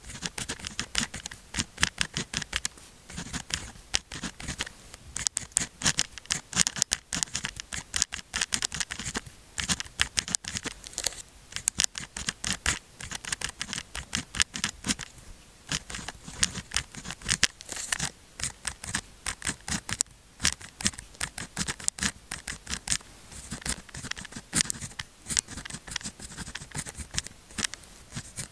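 Pen nib scratching across sticky-note paper in quick strokes, as characters are written by hand, with a few brief pauses between strokes.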